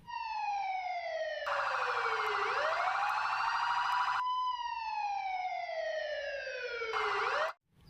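Toy police car's electronic siren: a wailing tone that slides slowly down, back up and down again. A fast warbling siren tone is layered over it through the middle stretch and again briefly near the end. It cuts off abruptly just before the end.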